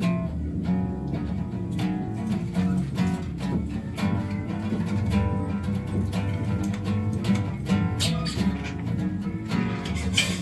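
Acoustic guitar being strummed, with chords ringing on and sharp attacks from the strokes.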